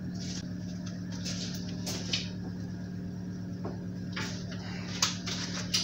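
Steady low hum with a few scattered clicks and knocks of tools being handled and set down on metal.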